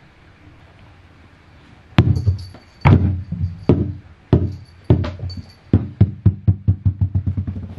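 Rubber super ball bouncing on a wooden floor: hard bounces begin about two seconds in, then come quicker and quicker as the ball settles near the end.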